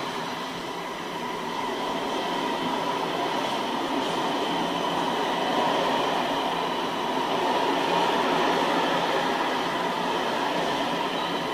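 Freight train of tarpaulin-covered wagons rolling past at speed: a steady rumble of steel wheels on the rails, with faint steady high tones above it.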